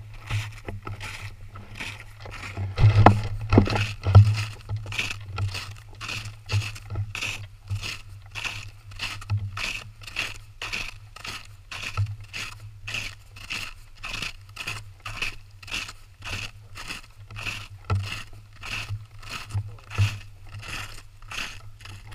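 Boots crunching through snow at a walking pace, about two steps a second, with a few heavier crunches about three to four seconds in.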